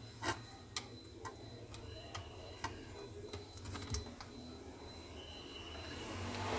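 Light, irregular clicks and taps of small hand tools and parts being handled on an opened laptop during cleaning of a corroded area.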